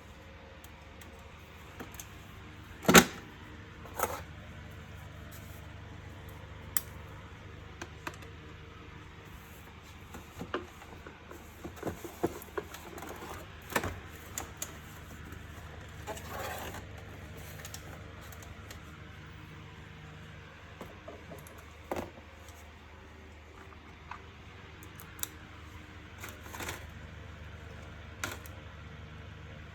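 Plastic vacuum-cleaner housing parts being handled and fitted together: scattered clicks and knocks, the loudest a sharp knock about three seconds in, over a faint steady hum.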